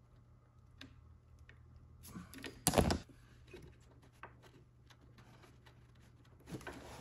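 Light clicks of hand tools and fittings at a snowmobile carburetor. About three seconds in comes a short clatter, the loudest sound, which fits the needle-nose pliers being set down on the seat. A low steady hum runs underneath.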